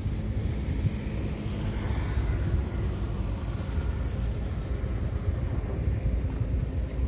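Heavy construction machine engine running steadily, a deep continuous rumble.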